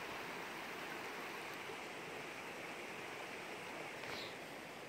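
Steady rush of running water from the creek and falls. A brief faint high sound comes about four seconds in.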